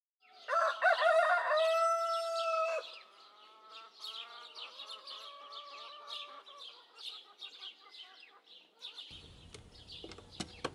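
A rooster crows once, loud, ending on a long held note. It is followed by quieter, scattered chirping and clucking of chickens, with a couple of sharp clicks near the end.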